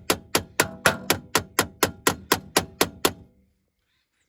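Steady rapid tapping on the burner assembly of a Dometic RV propane fridge, about four sharp, briefly ringing metallic taps a second, done to knock loose rust and soot so the debris falls out. The tapping stops about three seconds in.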